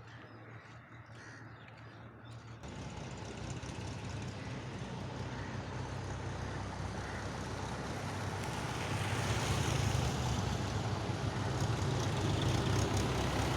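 A motor vehicle engine running, coming in suddenly a few seconds in and growing steadily louder.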